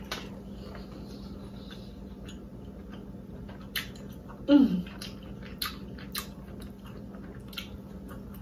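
Close-up wet chewing of a tender, sauce-coated lobster tail, with scattered mouth clicks and smacks. About halfway there is a short 'mmm' of enjoyment that falls in pitch. A faint steady hum runs underneath.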